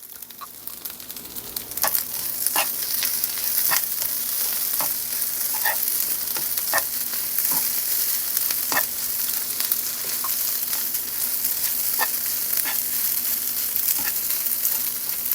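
Fried rice sizzling in a hot pan while it is stirred, with scattered clicks and scrapes of the spatula against the pan about once a second. The sizzle builds over the first couple of seconds, then holds steady.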